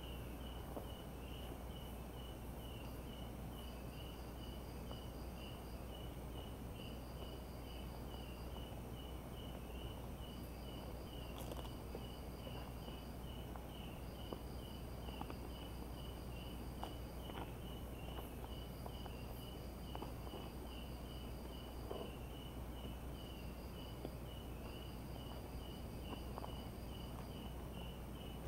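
Night insects: crickets chirping in an even pulse about twice a second, with a higher-pitched insect trilling in runs of a second or two with short gaps, over a low steady hum.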